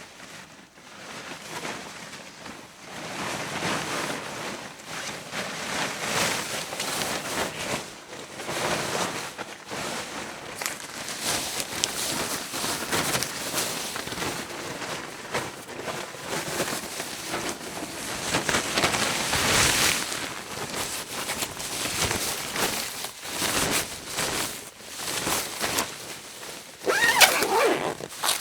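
Fabric of a radiation protective suit rustling as the suit is handled, put on and taken off, in repeated swells of movement. A brief, louder rasp near the end.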